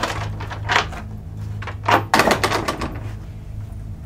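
A few short footstep scuffs and knocks, the loudest about two seconds in, over a steady low electrical hum.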